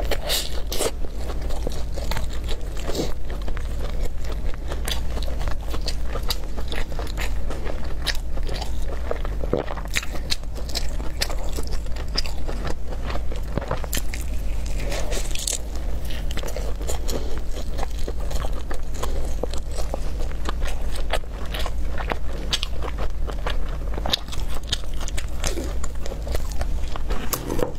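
Close-miked eating of a loaded shouzhuabing (flaky Chinese pancake): repeated bites and chewing with crunchy crackles and wet mouth clicks at an irregular pace, over a steady low hum.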